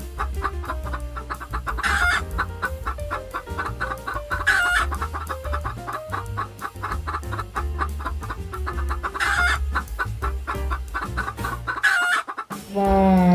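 Chickens clucking in a rapid run of short calls, several a second, with four louder squawks spread through it, over background music with a steady bass line.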